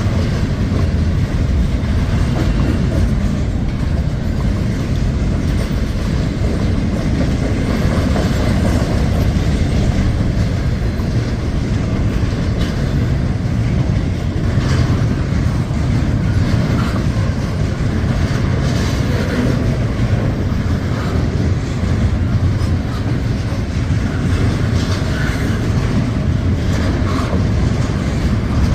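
Norfolk Southern freight train's cars rolling past: a steady rumble of wheels on rail with occasional clacks over the rail joints.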